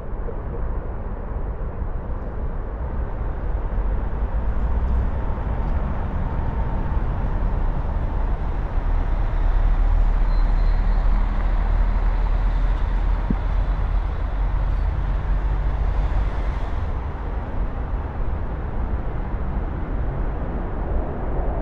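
Distant city ambience: a steady, diffuse wash of traffic with a heavy low rumble, swelling slightly around the middle.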